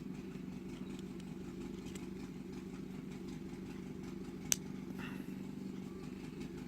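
A single sharp click about four and a half seconds in: the lock of a Leatherman Wave multi-tool letting go as a tool is unlocked. It sounds over a steady low hum.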